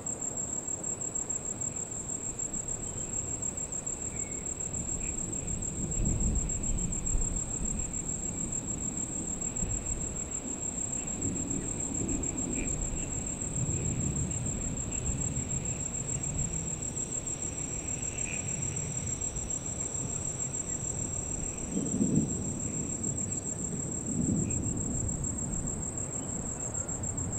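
Insects trill steadily at a high pitch, and low rolls of thunder swell and fade several times beneath them.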